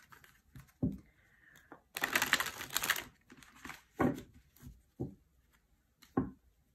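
A tarot deck being riffle-shuffled by hand: a rapid flutter of cards about two seconds in, lasting about a second, with a few soft thumps as the deck is tapped and squared.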